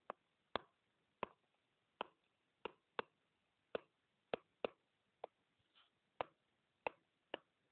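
Stylus tip tapping on a tablet screen while handwriting: about a dozen short, sharp clicks at an uneven pace, roughly one every half second.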